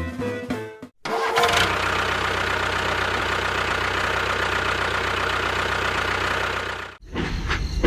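An engine starting about a second in, then running steadily before it cuts off abruptly near the end. Music plays briefly at the start.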